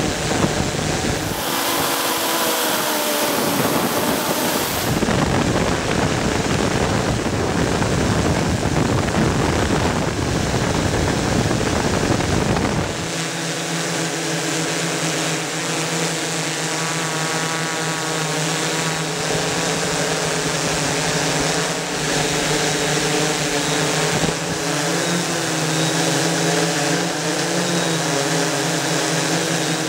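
Octocopter's eight electric motors and propellers whirring steadily in flight. Wind rushes heavily over the microphone until about halfway, then the motor hum is clear, its tones wavering a little as the aircraft manoeuvres.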